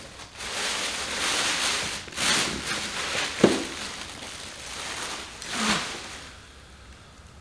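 Cardboard box and packing material rustling and scraping as a steering wheel is unboxed, in several swells with a sharp click about three and a half seconds in, dying down near the end.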